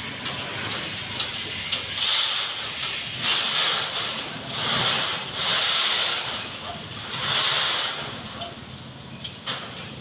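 Street traffic noise with a low engine rumble and several short hissing bursts, about five in the middle of the stretch, each lasting under a second.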